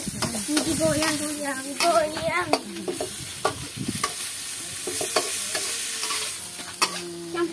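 A metal spatula stirring and scraping sliced tubu shoots in a wok, with a steady frying sizzle and many sharp clicks of the spatula against the pan.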